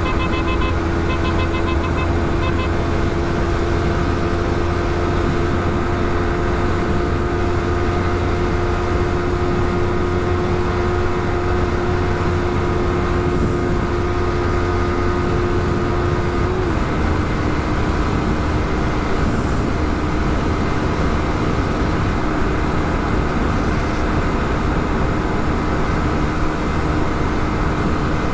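Motorcycle riding at a steady speed: a constant rush of wind and road noise over a steady engine drone, whose pitch drops a little about two-thirds of the way through. A short run of quick beeps sounds at the very start.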